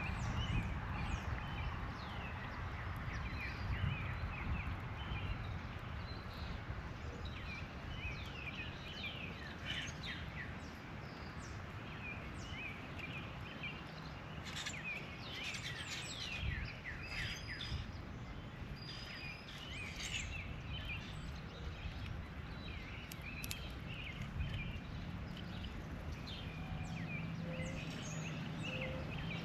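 Many short bird chirps and calls over a steady low background rumble, thickest in the middle stretch.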